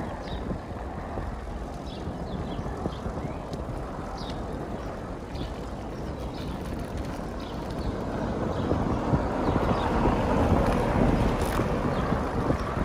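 Wind buffeting the microphone and tyre rumble from a bicycle riding along an asphalt bike lane, growing louder about two-thirds of the way through.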